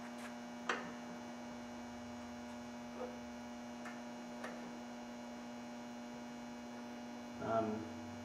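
Hand-lever arbor press being pulled down to press a tapered roller bearing cup into a front wheel hub, giving a few light clicks, the loudest about half a second in and fainter ones around three to four and a half seconds. A steady electrical hum runs underneath, and there is a short vocal sound near the end.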